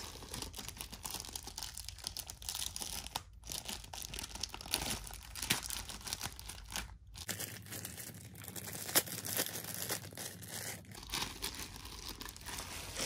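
Clear plastic shrink wrap crinkling and tearing as it is pulled off a rolled canvas, a continuous run of small crackles with two brief breaks.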